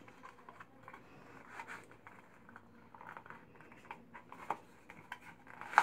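Kydex pancake holster being worked onto a trouser belt: faint rustling and scraping of plastic against cloth, with scattered small clicks and a sharper click near the end.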